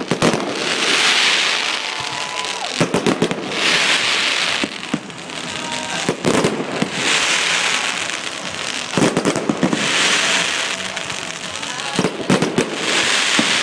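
Aerial fireworks going off: sharp bangs, each followed by a long crackling shower. The pattern repeats about every three seconds.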